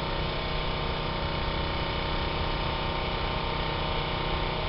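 An engine running steadily at an even pitch, a constant hum with a low rumble beneath it.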